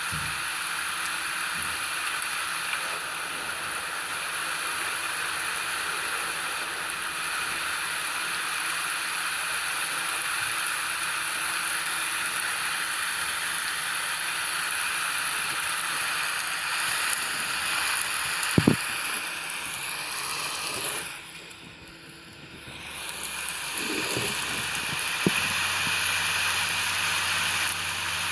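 Steady rain falling, an even hiss that dips for a moment about two-thirds of the way through, with a few soft knocks of drops near the end.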